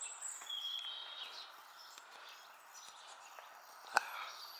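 Small birds calling in woodland: high, thin whistled and chirping notes, strongest in the first second and a half, over a steady background hiss. A single sharp click about four seconds in.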